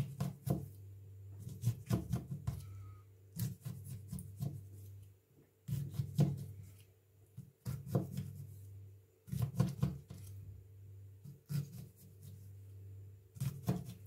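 Small kitchen knife plunging V-shaped cuts into a lime on a plastic cutting board: short clicks and taps in small clusters every second or two, over a low steady hum.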